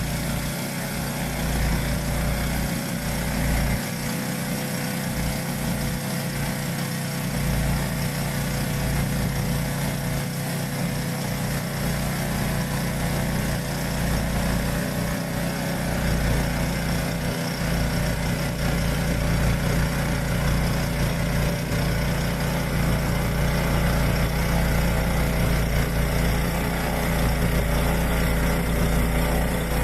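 Yamaha YT1070 snowblower's engine running steadily, a little louder in the second half.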